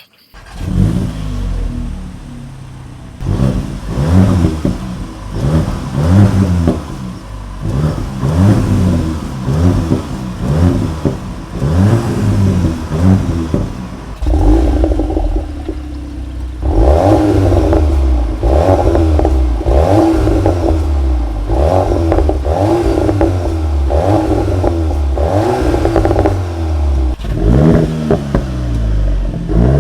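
Volkswagen Golf's turbocharged 2.0-litre four-cylinder engine with an Akrapovič exhaust, started at standstill and then revved in repeated short throttle blips, each pitch rising and falling. About halfway through it switches to longer, steadier held revs.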